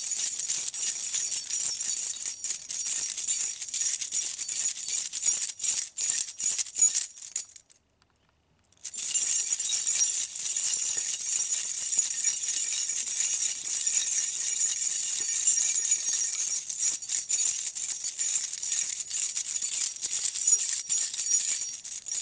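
A bunch of metal keys on a ring being shaken and jangled continuously, a dense, bright jingling. It stops for about a second some eight seconds in, then starts again.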